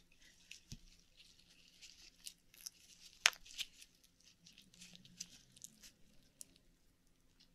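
Faint small clicks and scratching from opening an Akoya oyster by hand and working the pearl out of it, with one sharper click about three seconds in.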